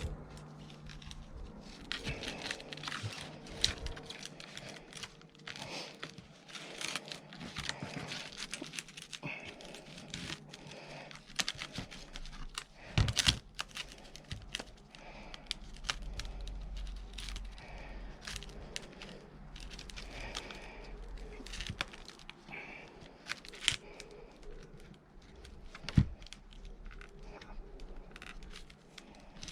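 Rope rustling and scraping as a Palomar knot through a magnet's eyelet is pulled tight by hand, with irregular small clicks and two sharp knocks, one about halfway and one near the end.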